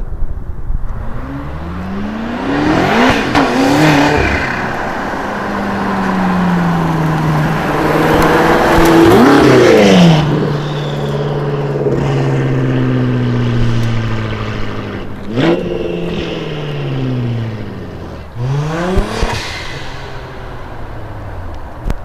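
A modified car's engine and exhaust revving up and down several times. The pitch then falls away in one long slow drop, and two sharp cracks sound in the second half.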